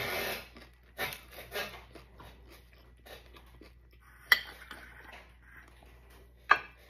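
Close-up chewing and crunching of a taco shell, loudest in the first two seconds. Two sharp clacks of dishware follow, about four seconds in and again near the end.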